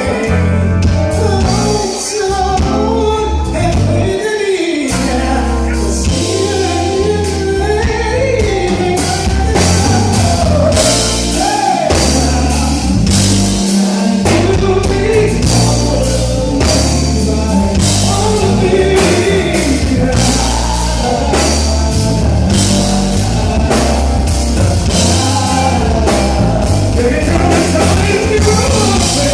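A man singing a song over music with a steady bass line and drum beat.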